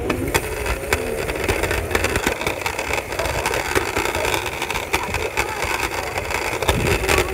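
Scooter wheels rolling over pavement: a steady rumble with frequent small clicks and knocks, muffled through a pocket, with fabric rubbing on the phone's microphone.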